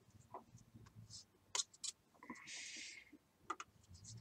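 Faint scraping and light tapping of a wooden stick stirring thick wood filler paste in a paper cup, with one longer scrape a little past halfway.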